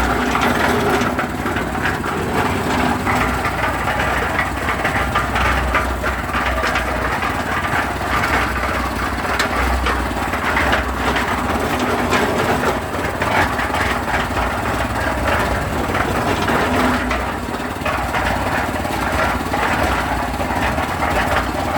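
Concrete mixer running steadily, with a continuous dense rattle of clicks over the hum of its motor.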